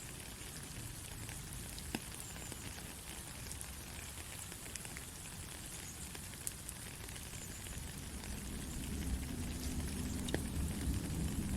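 Soft rain falling steadily: an even hiss with scattered drop taps. A low rumble grows in from about two-thirds of the way through.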